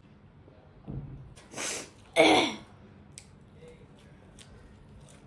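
A person's breathy gasps: a short noisy breath, then just after two seconds a loud sharp exhale with a voiced tone that falls in pitch.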